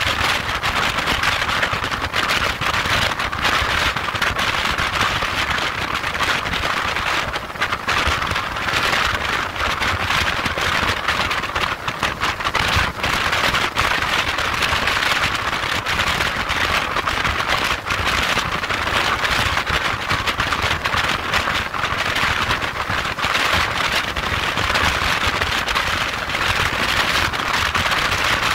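Wind rushing over the microphone of a motorcycle at motorway speed: a loud, steady rush full of crackling buffets, with road and engine rumble underneath.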